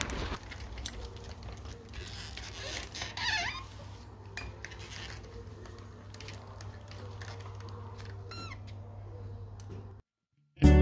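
Shop room tone: a steady low hum with scattered light clicks and clinks, and two brief high squeaky calls that slide up and down, about three seconds in and again near the end. It cuts to silence just before the end.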